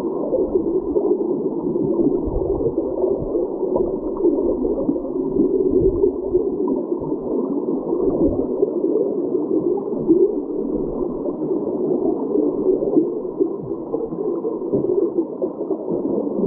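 Creek current heard underwater: a steady, muffled rushing and gurgling with no highs, flickering slightly in loudness.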